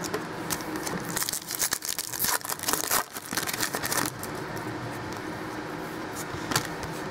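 Foil wrapper of a trading-card pack crinkling and tearing as it is ripped open by hand, for about three seconds starting a second in; after that only quiet handling, with one click near the end.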